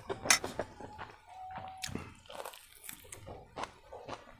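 Close-up eating sounds: chewing and crunching food, with sharp clicks of a fork and spoon against a steel plate.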